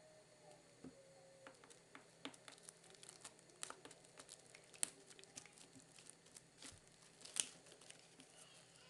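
Kittens play-fighting: faint, scattered scuffling and light clicking of paws and claws, with two sharper knocks about five and seven and a half seconds in.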